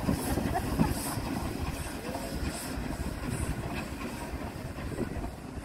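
Steam locomotive pulling away slowly: regular puffs of exhaust steam, about one every three-quarters of a second, over a low rumble of the train on the rails, growing a little fainter as it draws away.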